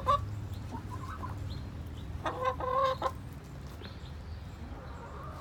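Backyard hens clucking, with two short, clear calls a little over two seconds in and softer clucks around them.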